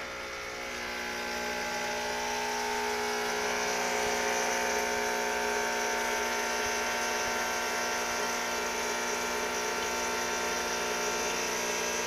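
A Krups espresso machine's pump buzzes steadily as hot water streams from the group head into a stainless steel bowl. This is a cleaning flush with no coffee in the machine. The buzz and splash swell over the first couple of seconds and then hold steady.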